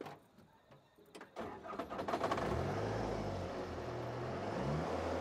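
Yanmar rice combine harvester running, its engine and cutting gear coming in about a second and a half in and building to a loud, steady run with the engine pitch rising slightly a couple of times.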